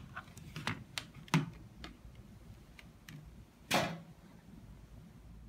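Hard plastic case of a HAZET 1/4-inch socket set being unlatched and opened: a handful of quiet, irregular clicks in the first two seconds, then one louder, brief clatter a little before four seconds.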